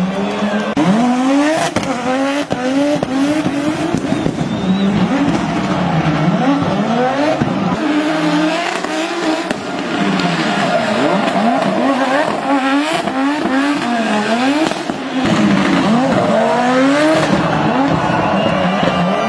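Audi Sport Quattro S1's turbocharged five-cylinder rally engine revving hard, its pitch rising and falling again and again with rapid throttle changes as the car is driven flat out and sideways, with tyres squealing.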